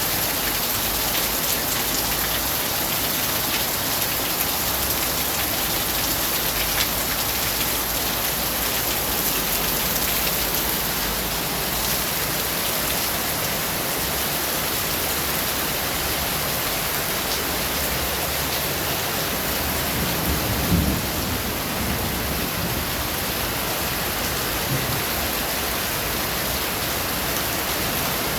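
Steady rain with low rumbling thunder beneath it, and a short, louder thunder clap about two-thirds of the way through.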